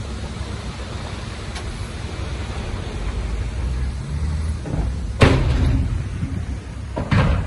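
Diesel engine of heavy earthmoving machinery rumbling at low speed, with two loud bangs about five and seven seconds in, the first the louder.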